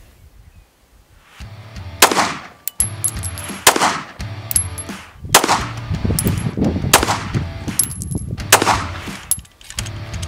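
FN 509 pistol firing slow, evenly paced single shots, about six of them roughly a second and a half apart, starting about two seconds in. A short high ring follows several of the shots.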